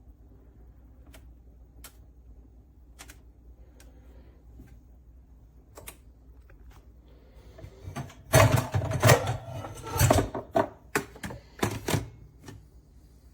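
A few light, widely spaced clicks, then about four seconds of loud, rapid clattering knocks of hard objects being handled.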